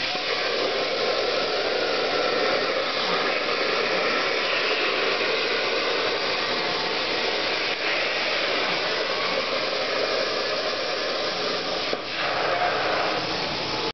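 CNC plasma cutter torch cutting through steel plate: a loud, steady hiss of the arc and its gas jet, broken briefly near the end.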